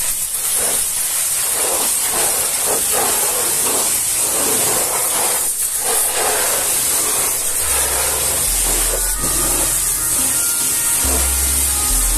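High-pressure washer jet spraying a truck's wheel and tyre: a steady spray of water with spatter as it strikes the rim and lug nuts.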